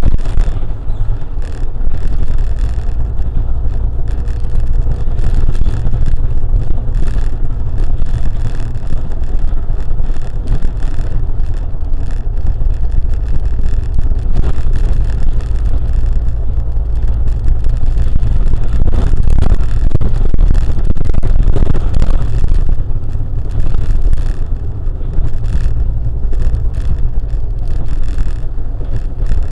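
A car driving on city roads: a steady low rumble of engine and tyre noise, with a short stretch of brighter road noise about two-thirds of the way through.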